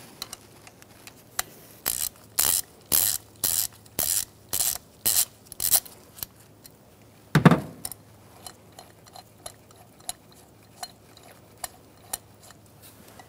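Ratchet clicking as a spark plug is loosened through a socket extension and spark plug socket: about ten sharp clicks, roughly two a second, then a single heavier knock about seven seconds in, followed by lighter scattered ticks.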